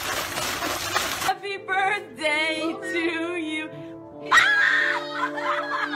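Water splashing and sloshing as a horse paws in a water trough, cut off about a second in. Music with voices follows, with a louder burst of voices about four seconds in.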